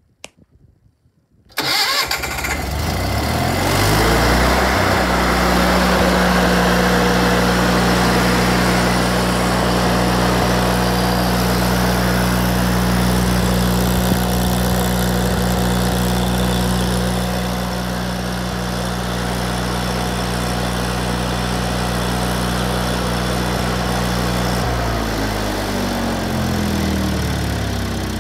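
Miller Bobcat 225G welder-generator's Onan Performer 16XSL twin-cylinder engine starting about a second and a half in, speeding up over the next few seconds to a steady running speed. Near the end it slows to a lower speed.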